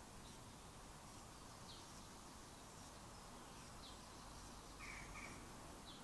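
Faint steady hiss with a few short, faint bird chirps scattered through it, and a pair of slightly lower calls close together near the end.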